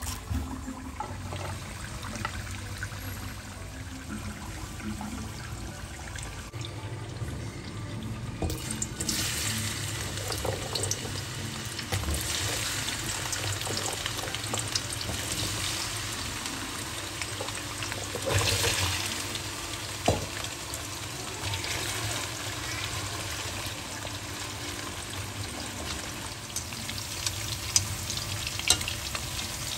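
Food frying and sizzling in a hot pan as it is stirred. The sizzle starts up strongly about nine seconds in and grows louder for a moment a little past halfway.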